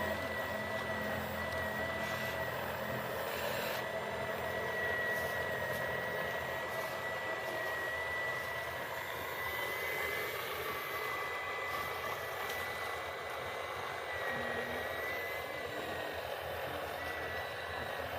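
Steady high-pitched electric whine, wavering slightly in pitch, over a continuous rushing mechanical noise, from the motors of a radio-controlled construction machine at work.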